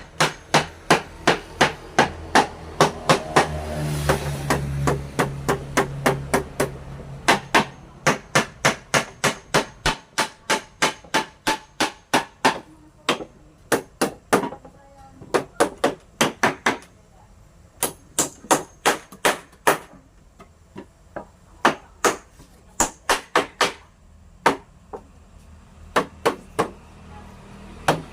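Hammer blows on wood, coming in quick runs of about two to three strikes a second with short pauses between runs, the kind of hammering used to assemble wooden furniture.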